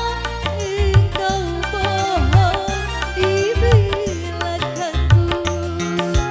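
Live dangdut band playing: a steady kendang and drum beat with bass under a lead melody that slides and bends in pitch.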